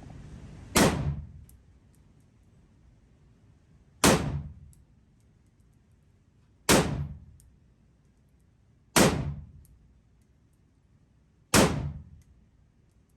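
Five single gunshots from a shoulder-fired gun, fired one at a time at a slow, even pace about two and a half to three seconds apart. Each shot is a sharp crack that rings out briefly in the enclosed range.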